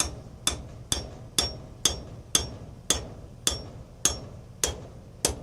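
Hammer tapping a small pin punch in steady, evenly spaced blows, about two a second, each a sharp metal-on-metal strike with a short high ring, driving the moving jaw out of an adjustable wrench held in a vise.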